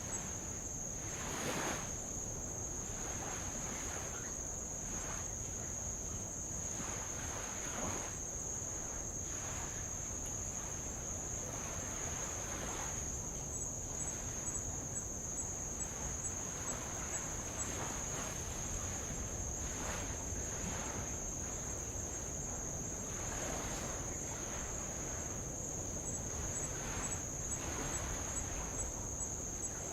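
A steady, high-pitched chorus of insects trilling without a break, with light waves washing softly against old lava rock every few seconds.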